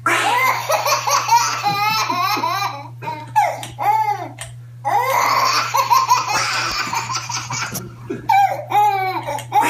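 A baby laughing hard, in repeated bursts of high-pitched belly laughs with short breaks for breath.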